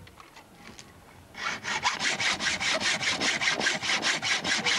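Hand hacksaw cutting through a steel chain link clamped in a bench vise: quiet at first, then from about a second and a half in, rapid, even rasping strokes, about five a second.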